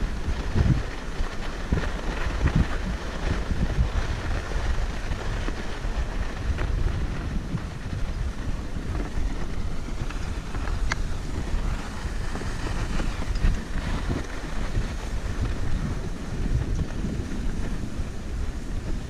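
Wind buffeting a GoPro's microphone during a downhill ski run, heaviest in the low end and gusting unevenly, with the hiss of skis sliding over groomed snow.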